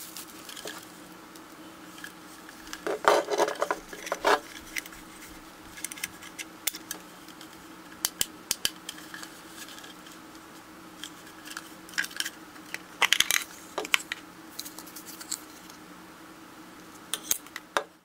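Hard plastic clicking, knocking and rattling as a plastic LED camping lantern is handled and turned over on a table. The clatter comes in clusters, loudest about three to four seconds in and again around thirteen seconds, over a faint steady hum.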